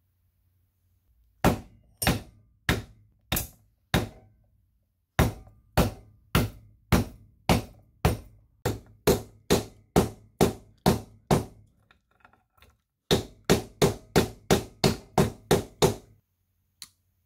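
Soft-faced mallet tapping roller chain links threaded on a steel wire against a block. Five evenly spaced blows, a short pause, a steady run of about a dozen, then a quicker run of about ten.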